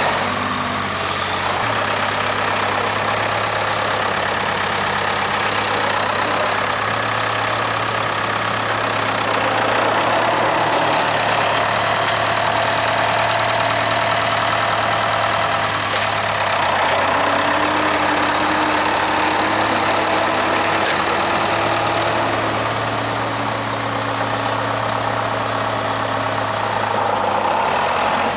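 Case 580K backhoe engine running steadily while the machine digs, its note shifting slightly now and then.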